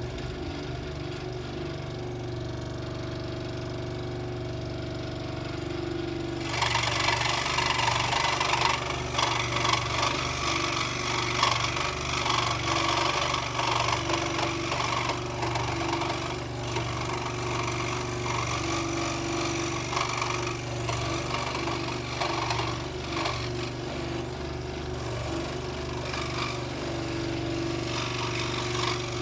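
Scroll saw running with a steady motor hum; about six seconds in the blade starts cutting wood and the sound turns louder and rasping, continuing as the cut goes on.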